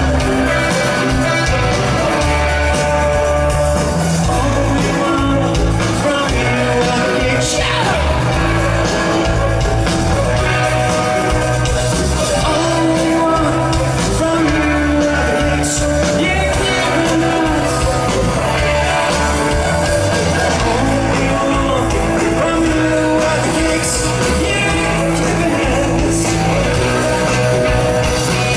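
Live rock band playing loud, with electric guitars, bass and drums under a male lead vocal, recorded from the audience.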